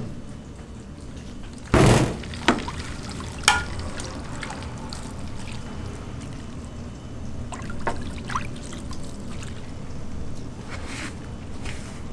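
Liquid being poured, with one heavy knock about two seconds in and a few sharp clicks after it.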